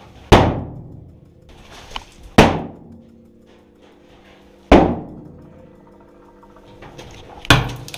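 Four loud, sharp bangs spaced about two to three seconds apart, each ringing out with a long echo that fades over about a second, over a steady low hum.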